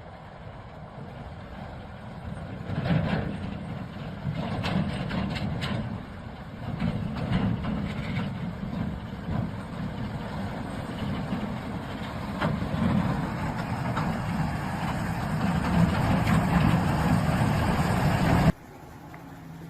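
A heavy truck's engine running under load, a rough low rumble with several sharp knocks and clatters, growing louder until it cuts off suddenly near the end.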